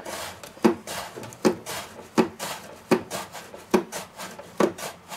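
Raw peeled potato pushed by hand across a plastic V-blade mandoline slicer, cutting thin slices: about seven scraping strokes, a little more than one a second.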